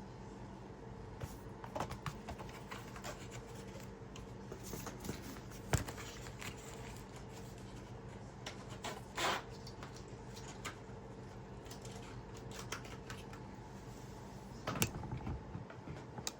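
Small tools and parts being handled and set down on a workbench during cleanup: scattered light clicks and knocks, a sharper knock about six seconds in, a brief scrape about nine seconds in and a cluster of knocks near the end, over a steady low hum.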